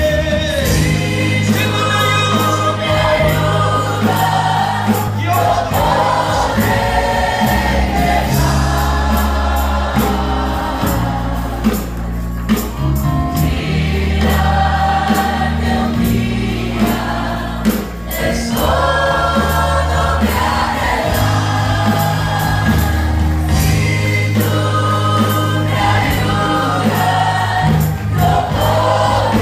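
A church congregation and the singers on stage sing a Spanish-language worship song together, backed by a live band with bass and drums.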